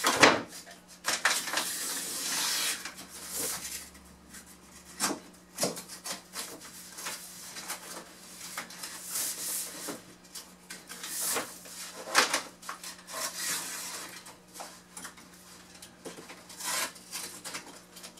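A stiff sheet of vinyl flooring being bent and pushed into place by hand, rubbing and scraping against the floor and wall, with a few sharp knocks, the loudest about twelve seconds in.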